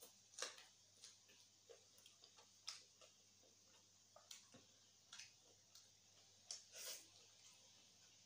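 Faint, irregular mouth clicks and lip smacks of someone chewing food with the mouth close to the microphone.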